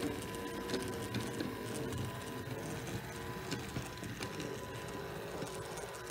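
Small electric motor of a 3D-printed O gauge model locomotive running under power, a steady whine with scattered clicks from the plastic wheels on the track.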